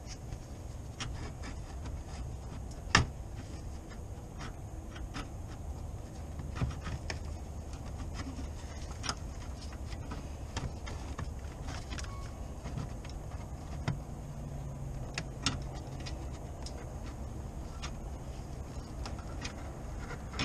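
Scattered clicks and knocks of hands and tools handling a car's intercooler and its mountings, the loudest a sharp knock about three seconds in, over a low steady rumble.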